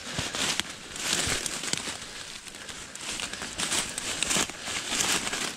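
Leafy vines and brush rustling and crackling as a person pushes through them on foot, in several surges, with a few sharp cracks of twigs.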